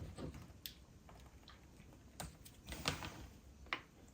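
A few faint, scattered clicks and taps: multimeter test probes being touched against the banana plugs of the speaker cable during a continuity check.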